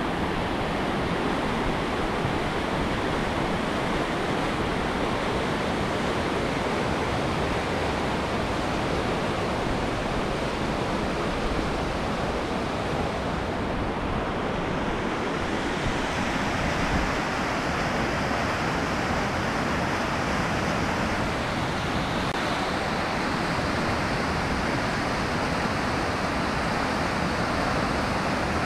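Fast white-water mountain river rushing over rocks, a steady, even rushing noise that turns a little brighter about halfway through.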